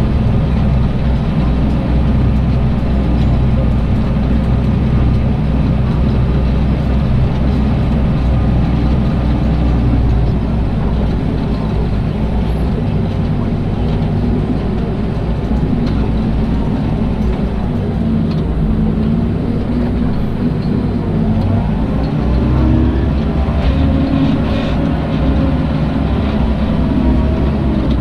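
Tractor diesel engine running steadily under load while pulling a four-furrow mounted reversible plough through the soil. Over the second half the engine note wavers up and down.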